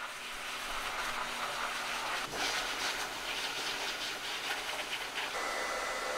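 Hose-type pet grooming dryer blowing air over a cat's coat, a steady rush of air that wavers as the nozzle moves over the fur, then settles about five seconds in with a thin high whine.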